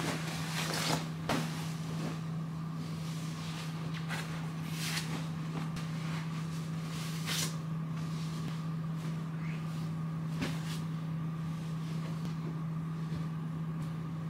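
Bedding being handled as a bed is made: a comforter shaken out and pillows set in place, giving several soft fabric swishes, over a steady low hum.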